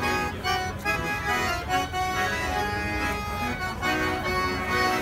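Piano accordion and violin playing an instrumental tune together, a melody of short notes over the accordion's held chords.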